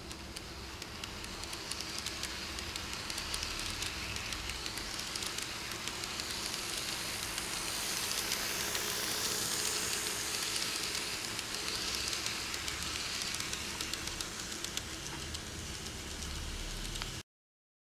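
Kato E233 Chuo Line model train rolling past on its track: a steady rattle of fine clicks over a low hum, louder around the middle, cutting off suddenly near the end.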